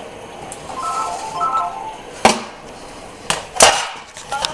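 A telephone ringing with a short repeating ringtone melody, interrupted by a few sharp clinks and knocks, the loudest about two seconds and three and a half seconds in.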